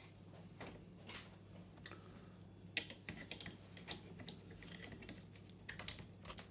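Light, irregular plastic clicks and taps as a small white plastic baby-monitor camera unit and its cables are handled and turned over, with a faint steady low hum underneath.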